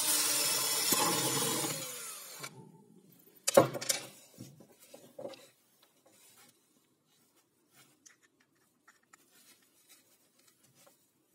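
Cordless drill running and boring into a wooden board, stopping suddenly about two and a half seconds in. Then a sharp knock and a few clacks, followed by faint clicks of small metal bits and a bit holder being handled.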